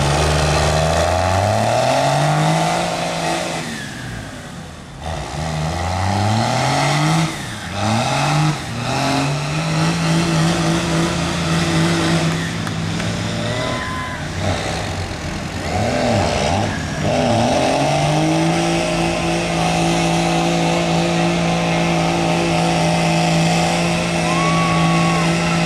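Dodge Cummins inline-six turbo diesel in a mud truck running hard through the gears, its pitch climbing and dropping back several times in quick succession, then holding high and steady for the last several seconds. Mud and water splash from the big Bogger tyres throughout.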